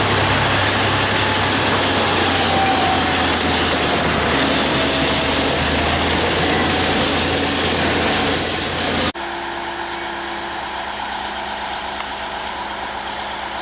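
DC-class diesel-electric locomotive hauling a long container freight train past, its engine giving a steady low hum under the rumble of the wagons. About nine seconds in this cuts off suddenly to a quieter, steady hum of an idling engine.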